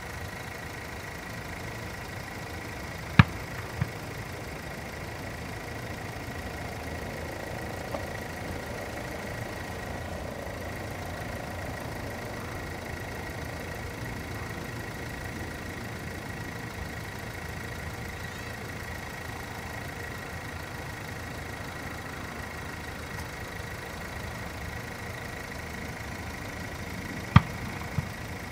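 Steady, distant jet noise from the GE GEnx engines of a Boeing 787-8 climbing out after takeoff. Two sharp clicks, each followed by a fainter one, cut through it about three seconds in and again near the end.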